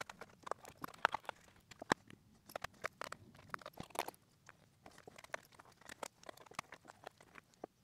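Scattered light clicks and taps of small screws and plastic parts being handled on an opened Dell E5550 laptop chassis during disassembly, irregular and quiet between.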